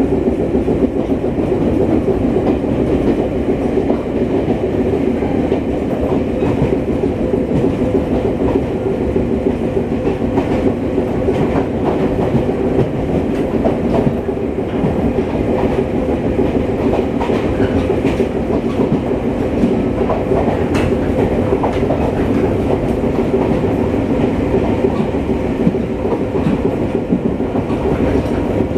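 Underfloor AK-3 reciprocating air compressor of an 800 series electric train, heard inside the car, running steadily over the train's running rumble. A few wheel clicks over rail joints come through.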